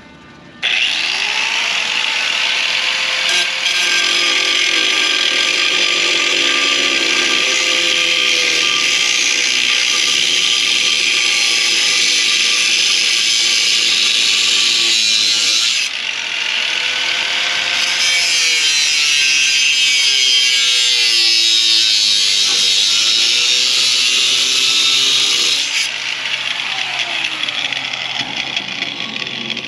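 Angle grinder with a cut-off wheel cutting through metal pole tubing: the motor spins up about half a second in and runs loud and steady under the cut, drops out briefly about halfway and restarts, then is switched off near the end and winds down with a falling whine.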